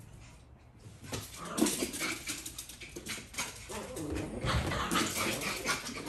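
Small dogs scuffling on a hardwood floor: quick clicking and skittering of claws, with short dog vocal sounds in among it, busiest from about a second and a half in.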